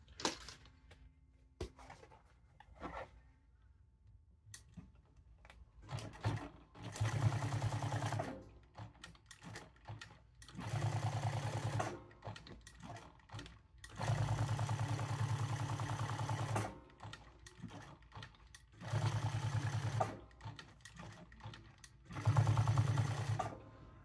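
Jack S5 post-bed industrial sewing machine stitching a leather patch onto a hat. It runs in five short bursts of rapid, even stitching with brief pauses between them as the hat is turned, after a few quiet seconds of light handling clicks.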